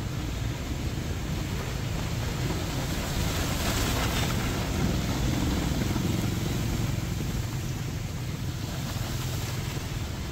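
Heavy rain pouring steadily on a city street, over a low rumble of traffic and wind buffeting the microphone. The rush grows louder for a few seconds around the middle as a vehicle passes through the water.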